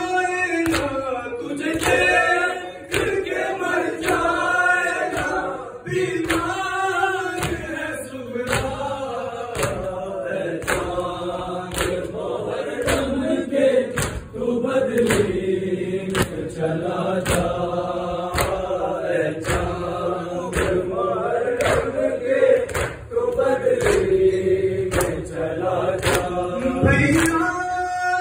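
Urdu noha (Muharram lament) sung by a male reciter with a group of men chanting along in chorus, kept in time by a steady beat of sharp slaps a little under two a second, the sound of the mourners' matam (beating their chests with their hands).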